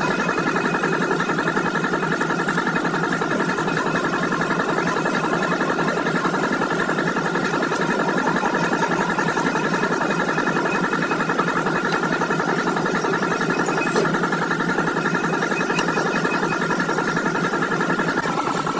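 A machine running steadily with a high, even whine and a fast rattle, unchanged throughout.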